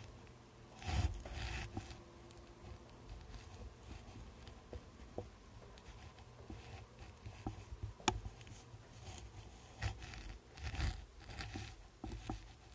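Soft footsteps with rustling handling noise from a head-mounted camera, as its wearer walks through rooms. A single sharp click comes about eight seconds in.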